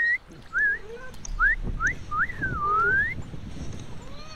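A man whistling to call cats: a series of short rising whistles, with one longer whistle in the middle that dips and then rises.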